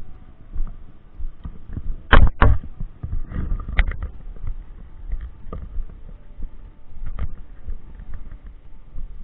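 Handling noise on the action camera: hands knocking and rubbing against it. There are two loud thumps about two seconds in, then scattered lighter knocks over a low rumbling rub.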